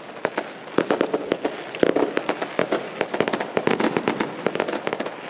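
Fireworks going off across the town: a rapid, irregular run of bangs and crackles, coming thicker from about a second in.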